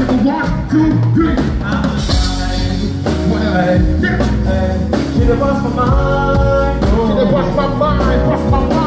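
Live band music: a drum kit keeping a steady beat under instruments and a lead vocal, a band playing through a song at a sound check.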